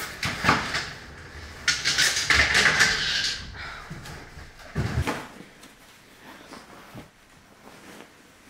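Ski equipment being handled: skis and poles knocking and clattering, a longer scraping rustle about two seconds in, and a heavy thump around five seconds, then quieter rustling of clothing and gloves.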